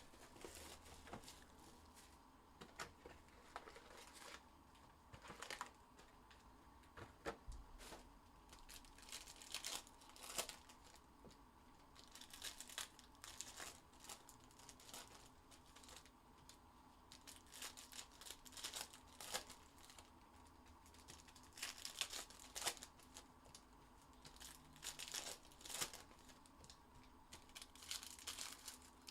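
Faint crinkling and tearing of plastic wrapping, in irregular crackles, as a hobby box of trading cards is opened and its packs unwrapped.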